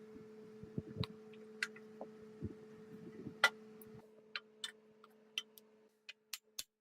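Scattered light clicks and taps over a steady low hum. Near the end the hum stops and a run of evenly spaced sharp ticks, about three to four a second, begins.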